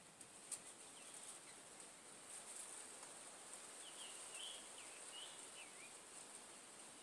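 Faint outdoor ambience: a few short bird chirps, mostly between four and six seconds in, over a steady high hiss, with one small click about half a second in.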